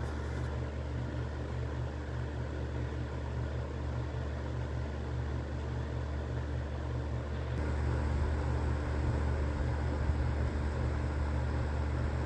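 Electric fan space heaters running: a steady fan-and-motor hum that gets a little louder about seven and a half seconds in.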